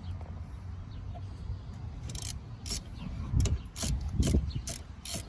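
Ratchet wrench working a bolt on a car's rear brake assembly: sharp ratchet clicks about twice a second start about two seconds in, among low knocks of the tool and parts.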